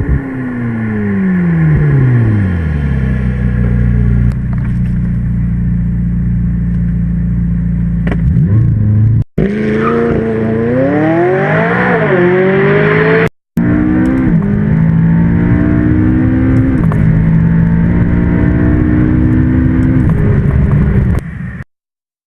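McLaren 570S twin-turbo V8 engine. The revs fall away at first, then it runs steadily. It then accelerates hard, the pitch climbing and dropping sharply at each quick upshift, across several edited runs that cut off suddenly.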